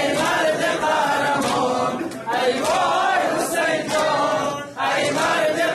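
Men's voices chanting a Persian nawha, a Shia mourning lament, together in long sung phrases, with short breaks about two and five seconds in.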